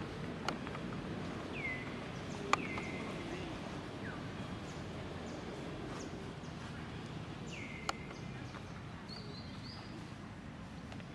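Short high chirping calls from an animal, each falling in pitch and then holding briefly, repeated about five times over steady background noise, with three sharp clicks.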